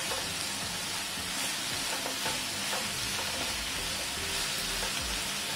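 Chopped onions sizzling in oil in a nonstick pan as they fry, stirred with a wooden spatula that gives a few faint scrapes and clicks. It is a steady frying hiss.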